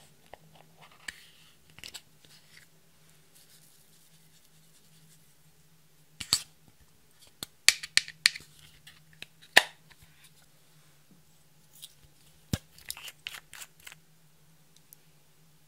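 Sharp clicks and crinkly taps in scattered clusters as a blue Lego-brick-shaped container is pulled apart and glitter is tipped out onto a glass dish.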